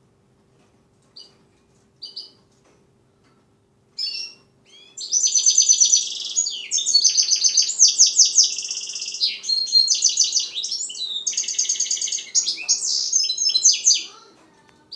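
Young goldfinch mule (European goldfinch × canary hybrid) singing. A couple of short high call notes come first. About four seconds in, a long, fast twittering song of rapid trills begins and runs for about ten seconds before stopping near the end.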